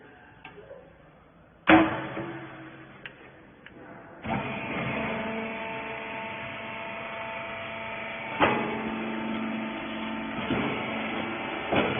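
Hydraulic rag baler: a sharp clang about two seconds in, then the machine's motor and hydraulic pump start about four seconds in and run with a steady hum, with further clanks near eight seconds and near the end.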